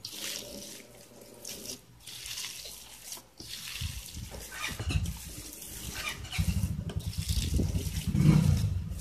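Hands squishing and kneading a wet mixture of shredded banana blossom, flour and egg in a stainless steel bowl, a wet squelching that gets louder and busier in the second half.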